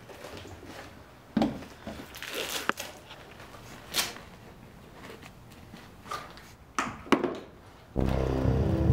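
Quad roller skates and gear being handled: scattered rustles and a few sharp knocks. Music comes in about eight seconds in.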